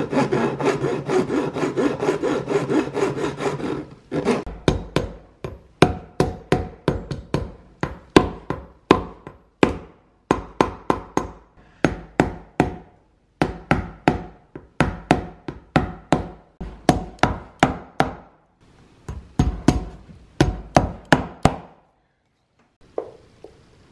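Flat hand file rasping across a leather dovetail heel to file its brass tacks flush: a continuous fast back-and-forth scrape for about four seconds, then many short sharp strokes in quick groups with brief pauses, stopping a couple of seconds before the end.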